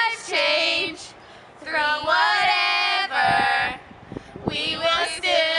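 Several young women singing together without accompaniment, in held, wavering notes broken into short phrases with brief pauses between them.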